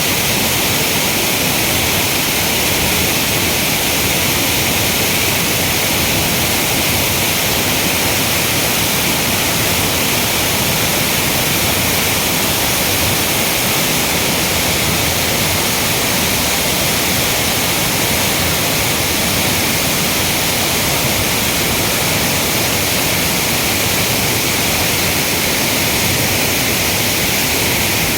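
Waterfall pouring steadily: an even, loud hiss of falling water that does not change.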